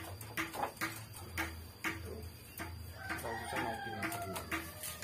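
A rooster crows once, a drawn-out call about three seconds in, over a steady ticking beat with a short low note about twice a second.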